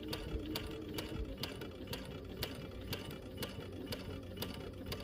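Sewing machine stitching a seam slowly and steadily, a click with each stitch at about two a second over the motor's hum.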